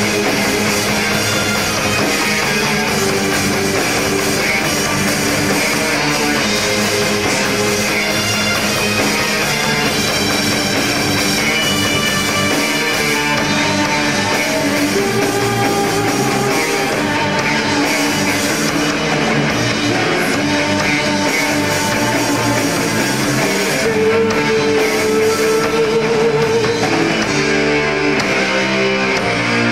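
A live rock band playing, with guitar, a drum kit, and held notes from a Roland XP-50 synthesizer keyboard.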